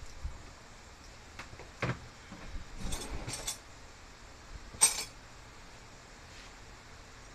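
Tools or small metal parts clinking: a few light knocks and clinks between about one and a half and three and a half seconds in, then one sharp, loud clink about five seconds in.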